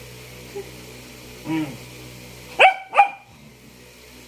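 Dog barking twice in quick succession, two sharp loud barks about two and a half seconds in, after a softer short sound. The dog is demanding food from the person it is standing over.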